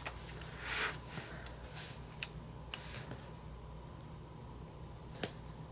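Quiet handling of planner sticker sheets and paper: a soft swish just under a second in, then a few light ticks, the sharpest about five seconds in, over a steady low hum.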